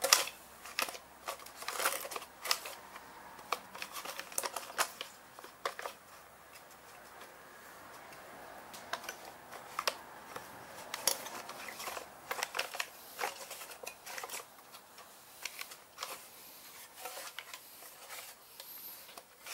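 Recoil starter pulley and housing of a Briggs & Stratton snowblower engine being spun and handled by hand, giving scattered irregular clicks and rattles of plastic and metal.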